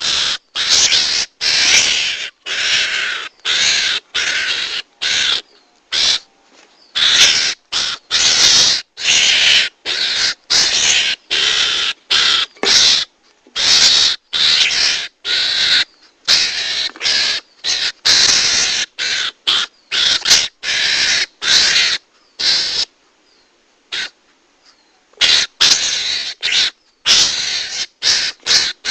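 Garangan (mongoose) hunting lure call: harsh, raspy screeching calls repeated about one to two times a second, with a pause of about two seconds near the end.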